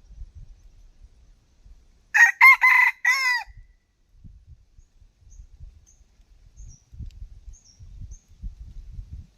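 A rooster crows once, a loud crow of about a second in several quick parts, from a decoy set out to lure wild red junglefowl. Faint rustling and a few small, high bird chirps follow.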